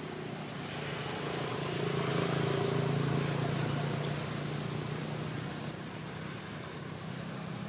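A motor vehicle passing on a road: its engine hum and tyre noise swell to a peak about two to three seconds in, then fade.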